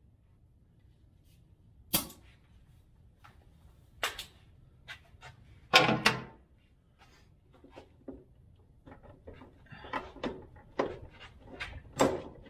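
Sharp separate clicks and knocks of metal and plastic parts being handled under a van: single ones about two and four seconds in, a louder double knock about six seconds in, and a run of smaller, quicker clicks in the last few seconds as fuel-line quick-connect fittings are worked by hand.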